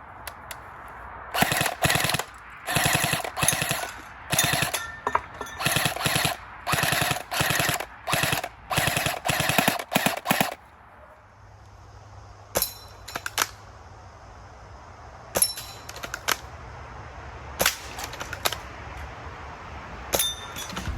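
Airsoft gun firing about ten short full-auto bursts of rapid clicking, then, from about the middle on, single shots at intervals, often in pairs.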